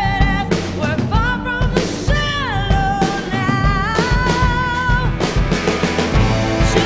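Pop song with a woman singing high, held notes with vibrato over drums and backing instruments; one sung note slides downward about two seconds in.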